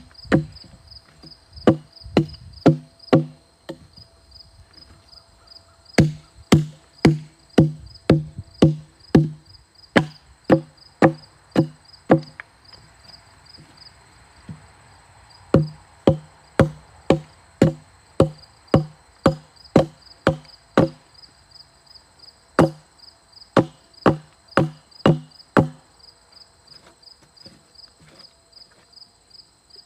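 Hatchet blows chopping into a log, in runs of about two strikes a second with short pauses between them, each a sharp wooden thunk. The blows chip out wood between chainsaw cuts. Insects chirp steadily behind.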